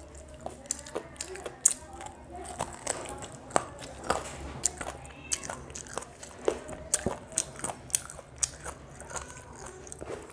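Chewing and smacking of someone eating chicken biryani by hand, with many sharp, wet mouth clicks.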